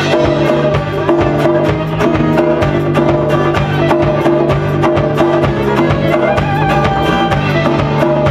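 Folk band playing live: bowed fiddle, acoustic guitar, bass guitar and drum kit together, with the drums keeping a steady beat.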